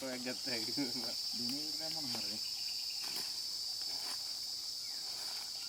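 Steady high-pitched insect chirring, with a person's voice talking for about the first two seconds.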